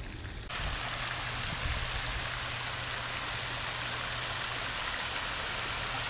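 Steady rush of water from an artificial waterfall sheeting down a wall into a shallow pool, starting suddenly about half a second in.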